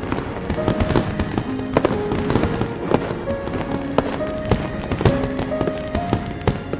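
Fireworks going off in many sharp bangs and pops, over background music with a melody of held notes.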